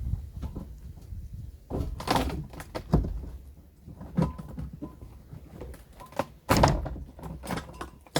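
Metal knocking and clanking as a fence bar and reinforcement rod are worked on: irregular knocks, the loudest about two and six and a half seconds in, with a faint ringing between them.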